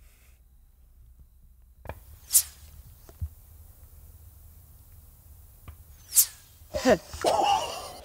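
Subsonic 8.6 Blackout bullets passing close overhead: two short, high-pitched whizzes, about two and a half and six seconds in, each coming half a second after a faint, sharp distant shot. A man's voice breaks out near the end.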